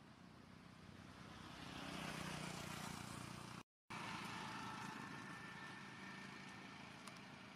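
A road vehicle passing, its noise swelling to a peak and then easing off; the sound cuts out completely for a moment partway through.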